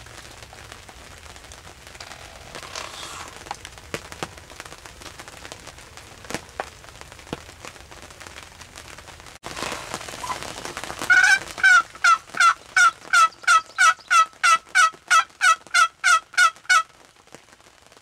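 Wooden box turkey call worked in a fast run of about twenty yelps, roughly three a second, starting about eleven seconds in and stopping shortly before the end. Before it there is only light rain pattering with scattered ticks.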